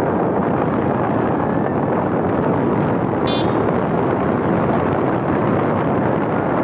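Steady wind rush over the microphone mixed with road noise from a moving vehicle, with a short high-pitched beep about halfway through.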